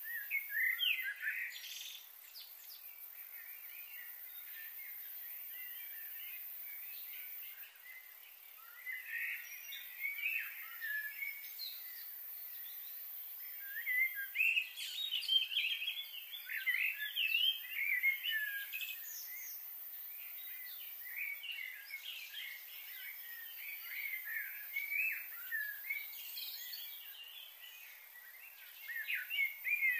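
Small birds chirping and twittering on and off, busiest about halfway through, over a faint steady hiss.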